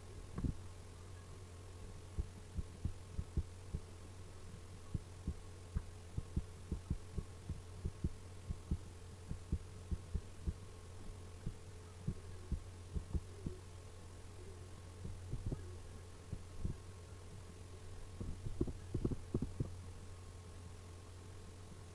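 Steady low electrical hum with many soft, irregular clicks from a computer mouse, often several a second, as short strokes are drawn one after another; the clicks cluster most densely near the end.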